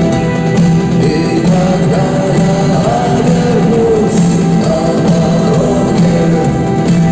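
Rock band playing live with singing, loud and steady.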